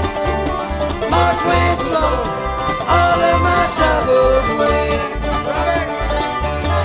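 Live bluegrass band playing an instrumental passage: banjo and guitar over a steady alternating bass line, with a fiddle sliding between notes.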